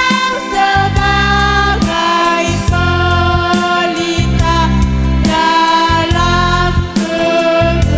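A melodica ensemble plays a melody in held, reedy notes that change about every half second to a second, over a heavy, pulsing bass accompaniment.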